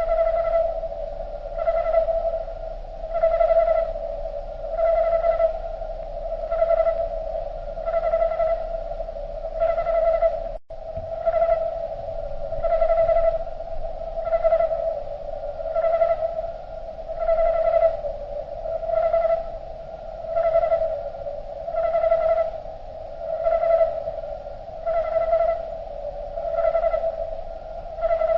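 Cricket song slowed far below natural speed, turned into a drawn-out tone that swells and fades in a slow, even pulse about every one and a half seconds. There is a brief dropout about ten seconds in.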